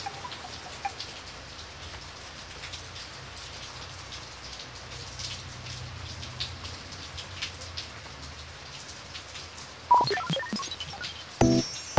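Steady rain falling, with scattered individual drops. About ten seconds in, electronic music starts with bright synth blips.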